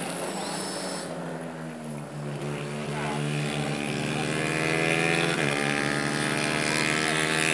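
Propeller-driven plane flying past overhead, its engine drone growing louder and dropping in pitch about five seconds in as it goes by.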